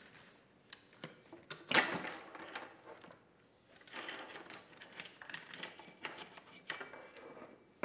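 Chainsaw chain being worked off the guide bar and drive sprocket by hand: loose steel links clinking and rattling in irregular bursts, loudest about two seconds in.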